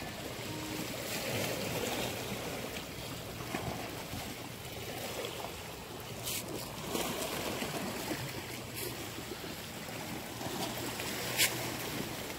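Small waves washing steadily against a rock seawall, with wind noise on the microphone. A few short sharp clicks, the loudest about 11 seconds in.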